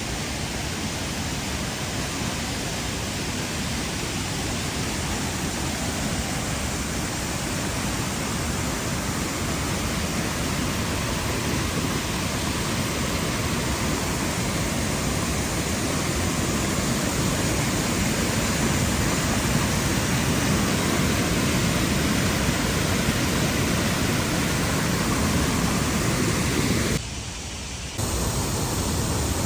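Steady rush of water falling over a waterfall, an even noise that slowly grows louder, with a brief drop of about a second near the end.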